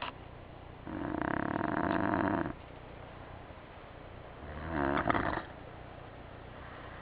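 A sleeping person snoring: two loud, rattling snores on the in-breath, a long one of about a second and a half near the start and a shorter one that swells and peaks about five seconds in.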